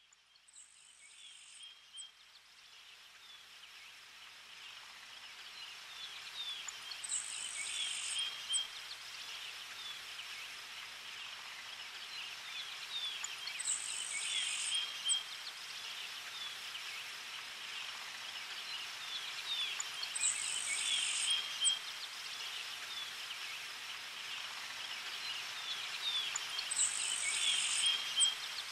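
Outdoor nature ambience of chirping birds and insects, fading in from silence over the first several seconds. A brief high buzzing trill comes back at even spacing, about every six and a half seconds, like a looped background track.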